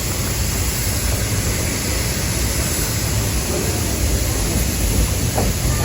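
Steady rumble and rushing noise of a moving passenger train car.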